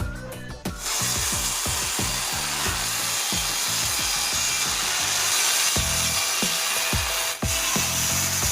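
Electric power tool running steadily on wood, starting about a second in, with a brief break near the end. Background music with a low beat plays underneath.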